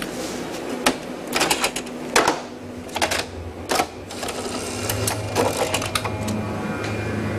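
Clicks and clatter of buttons pressed on a video tape editing controller, several in quick succession, then a steady low hum sets in a little past the middle as the tape machine runs.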